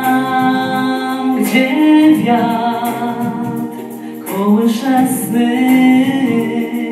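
A man singing a song into a hand-held microphone over a PA, holding long notes in two phrases with a short break about four seconds in.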